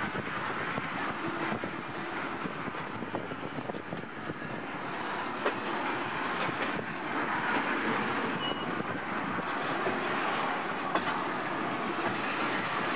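Freight train of tank cars rolling past close by: steel wheels running on the rails as a steady noise, with a few sharp clicks.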